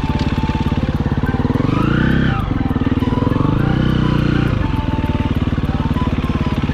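Motorcycle engine running, its revs climbing and falling back twice.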